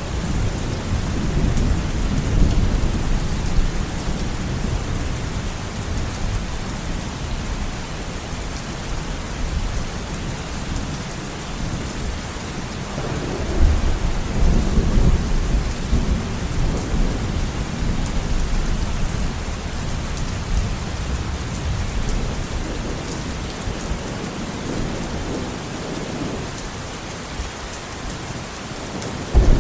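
Steady rain pouring down in a storm, with swells of low rumbling near the start and about halfway through, and a sudden louder low surge at the very end.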